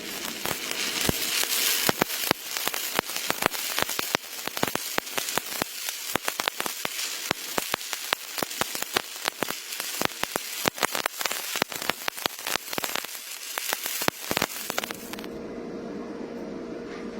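Electric arc welding on a pipe joint, a steady crackling and sizzling with many sharp pops. The arc stops about fifteen seconds in, leaving a steady hum.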